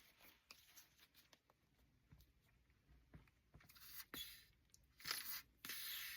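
Paper craft materials being handled at a desk: a few brief, faint scratchy rustles in the second half, the last one a little longer.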